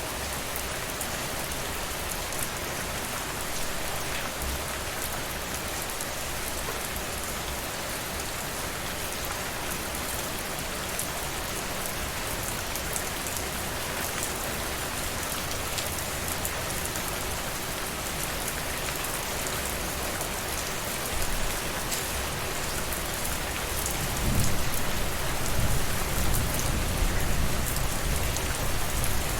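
Steady rain falling on a surface, an even hiss of many drops. About 24 seconds in, a low rumble of distant thunder swells beneath it and grows louder.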